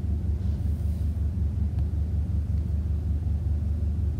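Steady low background rumble at an even level, with no other clear sound.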